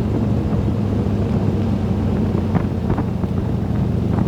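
Harley-Davidson Dyna's V-twin engine running steadily under way, with wind rushing over the microphone.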